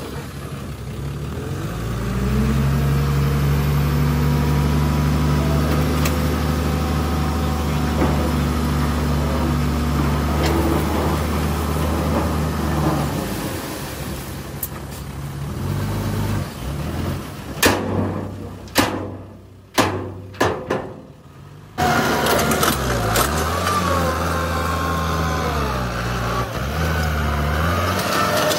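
Hino Ranger dump truck's diesel engine held at steady raised revs while the bed tips and dumps its load of dirt, then easing off. A few sharp knocks follow. In the last part, a farm tractor's engine runs with its revs rising and falling as it pushes dirt with a rear blade.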